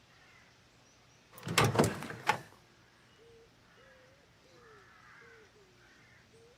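A door shutting with a few quick knocks, followed by faint birds calling in short, repeated arching chirps.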